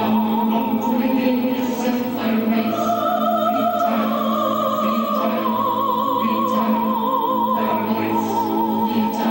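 Operatic singing: voices holding long notes with a wide vibrato, the melody stepping up and down, over a steady low musical accompaniment.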